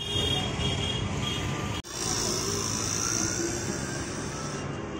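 Steady street ambience with traffic noise and a general hubbub, broken by a brief dropout about two seconds in.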